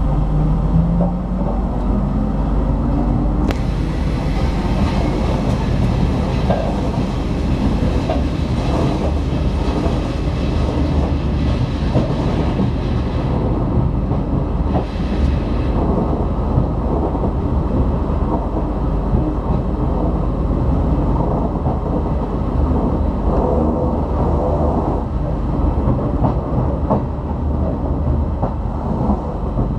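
Trenitalia train running along the track with a steady low rumble and light clatter of the wheels. In the first couple of seconds a rising whine shows it picking up speed.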